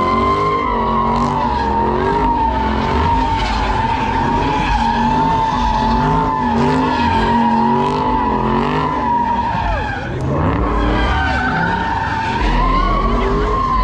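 A car spinning its tires in a slide, with a steady high-pitched tire squeal that wavers slightly in pitch throughout. Underneath it the engine revs up and down, and the noise briefly dips about ten seconds in.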